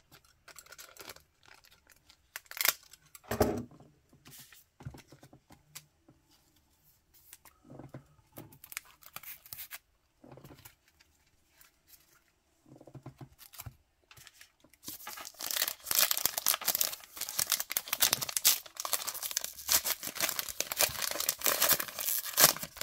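Trading-card pack wrapper being handled with scattered light rustles and taps, then torn open and crinkled in a dense run of crackling about two-thirds of the way through.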